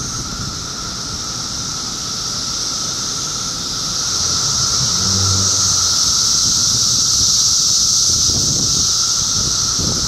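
Chorus of periodical cicadas (17-year Magicicada, Brood II) droning continuously: a high, hissing buzz with a thinner steady tone beneath it. It swells a little louder about four seconds in.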